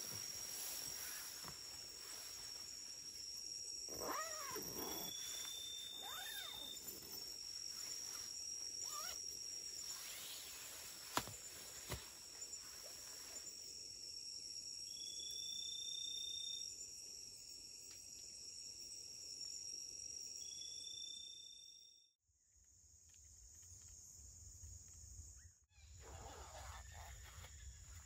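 Tropical forest insects chirring steadily in a high, even drone. Three short whistled notes come at intervals, and a few lower, falling animal calls sound about four to seven seconds in. The sound cuts out briefly twice near the end.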